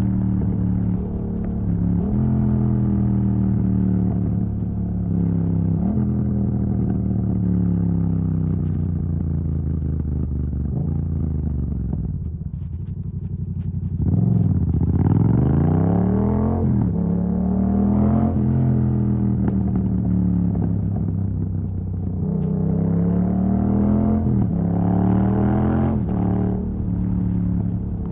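Yamaha MT-07's parallel-twin engine through an open exhaust with the dB killer removed, accelerating through the gears: the pitch climbs and then drops abruptly at each upshift. Near the middle it falls away and quietens as the rider rolls off, then climbs steeply again under hard acceleration.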